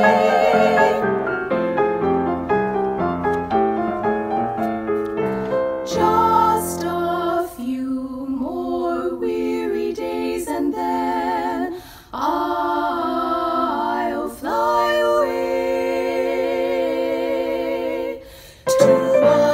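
One woman's voice recorded in several parts, singing in close harmony with vibrato over piano accompaniment. About a second in the voices drop out and the piano plays alone for several seconds, then the layered singing comes back in, with short breaths between phrases.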